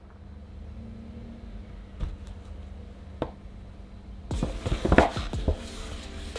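Hands rustling a stiff paper shopping bag and lifting a boxed gift out of it, a dense burst of crinkling about four seconds in, after a couple of single taps. A low steady hum underneath.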